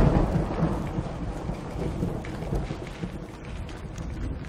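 Thunderstorm sound effect: a low rumble of thunder that is loudest at the start and slowly fades, over steady rain with the patter of drops.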